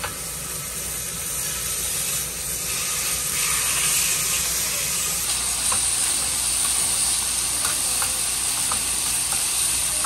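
Chicken and beef sizzling on a hot grill plate over a portable gas stove, the sizzle growing louder a few seconds in as more meat goes on. A few light clicks of metal tongs against the plate in the second half.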